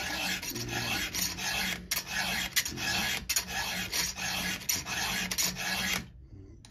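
Round file rasping across a chainsaw chain's cutter tooth in a steady series of push strokes a little under a second apart, stopping about six seconds in. The strokes file back a dented corner of the tooth.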